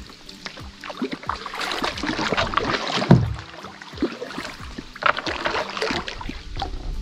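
Water sloshing and splashing around a kayak, with many small knocks and clicks against the hull and one heavier thump about three seconds in.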